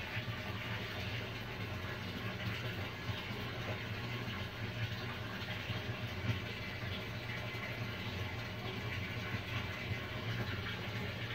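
Steady low hum of aquarium equipment under a constant hiss of bubbling, running water.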